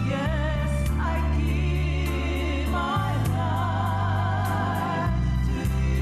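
Gospel song: a singer holding long notes with heavy vibrato over organ chords, bass and a steady drum beat.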